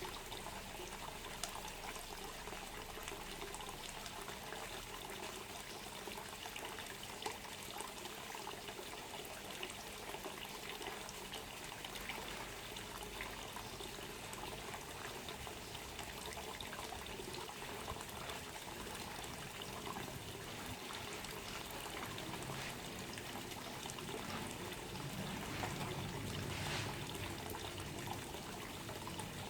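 Water trickling and pouring steadily, with small splashing ticks and a slight swell near the end.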